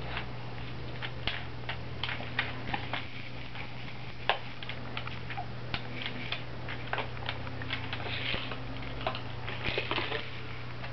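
Irregular small clicks and taps of hard plastic baby toys being handled and mouthed, over a steady low hum.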